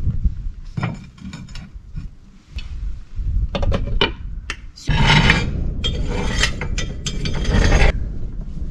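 A utensil scraping and clinking against a metal frying pan as food is stirred: a run of short strokes, then a louder, continuous stretch of scraping for about three seconds.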